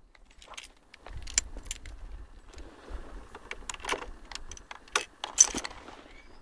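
Keys jangling and clinking as they are handled: an irregular run of sharp metallic clicks, the loudest about five and a half seconds in.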